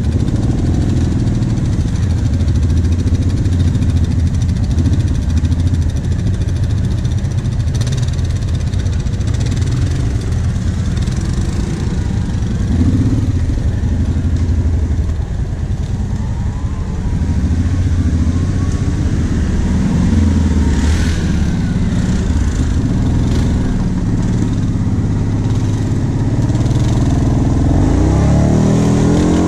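ATV (quad bike) engine running steadily under throttle over a dirt trail, revving up and down in pitch near the end as it climbs a slope.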